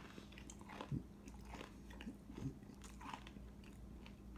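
Mouth chewing a bite of crispy breaded fried chicken wing, the coating crunching faintly and irregularly.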